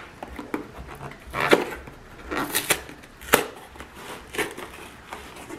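A small cardboard box being handled and pried at by hand: a series of irregular sharp knocks and short cardboard scrapes as the flaps are worked on.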